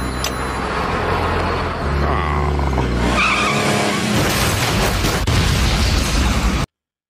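Cartoon car sound effects: a station wagon's engine running steadily, a short tyre squeal about three seconds in, then the car crashing down a cliff and exploding in a loud, noisy crash that cuts off suddenly near the end.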